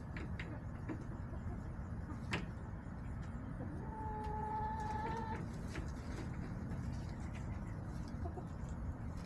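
Backyard hens clucking, with one drawn-out, held call lasting about a second and a half near the middle, over a steady low rumble.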